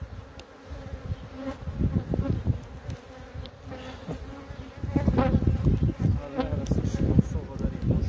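Honey bees buzzing around an opened hive: a steady hum with single bees passing close by. From about five seconds in, a louder low rumbling noise joins it.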